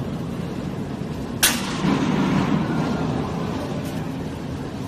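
A 100L vacuum homogenizer mixer running with a steady low mechanical drone, and one sharp click about a second and a half in.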